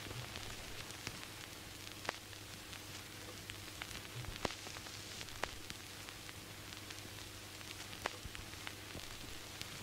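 Faint static hiss with scattered sharp crackles and pops, over a low steady hum.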